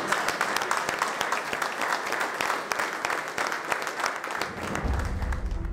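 Audience applauding with many hands clapping. Music comes in under it near the end.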